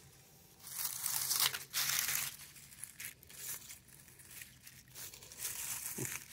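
Dry leaves crinkling and loose soil scraping as a gloved hand and a small hand shovel dig through a shallow hole, in a few short rustling spells.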